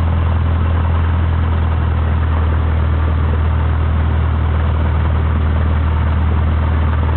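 Cessna 152's four-cylinder Lycoming engine running at low taxi power, heard from inside the cockpit: a steady, loud, low drone with no change in pitch.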